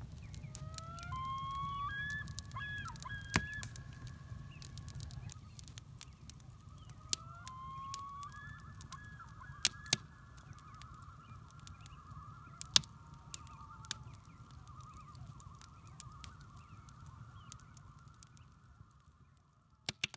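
Geese honking: a run of separate honks in the first few seconds, then a longer stretch of overlapping calling. Several sharp clicks stand out as the loudest sounds.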